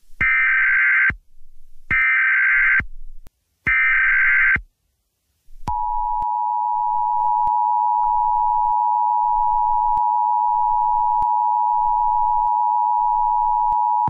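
Emergency Alert System tones: three short bursts of SAME header data, each about a second long, then the steady two-tone EAS attention signal, starting about five and a half seconds in.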